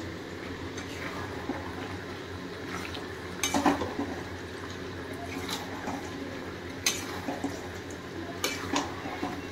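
Metal ladle scraping and knocking against a metal kadhai as chicken in masala is stirred and fried, with a handful of sharp metal clinks over a steady low hiss.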